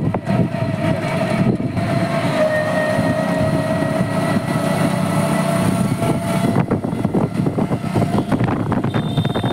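Engine and road noise of a vehicle driving through town traffic, heard from on board, with a steady whining tone held for about four seconds in the middle.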